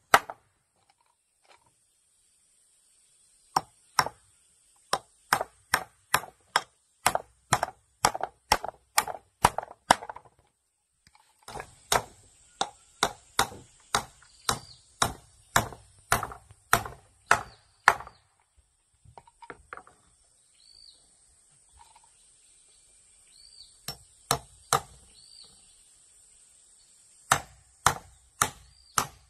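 Claw hammer driving nails into wooden boards: runs of sharp blows about two a second, with a pause near the start and lighter, sparser taps in the middle stretch before the full blows resume near the end.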